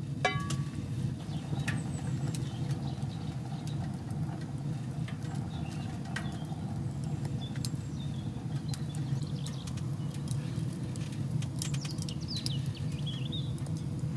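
Wood fire burning in a small tent woodstove: a steady low rumble with scattered sharp crackles and pops. A few short high chirps come in near the end.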